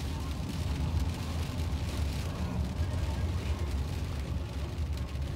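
Inside a moving car in heavy rain: a steady low rumble of the car and tyres on the wet road, with rain hissing against the windshield and roof.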